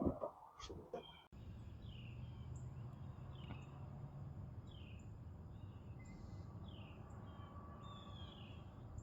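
Birds chirping: short falling chirps repeated every second or so over a steady low outdoor background noise, after a few knocks in the first second.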